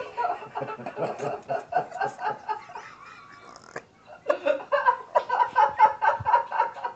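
A person laughing in rapid, pulsing bursts, in two long bouts with a short break in the middle.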